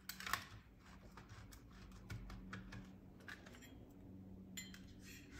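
Light scattered clicks and taps of plastic parts as the internal plastic frame of a Linksys MX5300 router is handled and taken apart, over a faint steady low hum.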